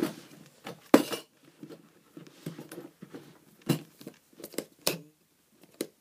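Handling noise from packets and containers being moved about: a scatter of irregular clicks, knocks and light crinkly rustles, the sharpest about a second in.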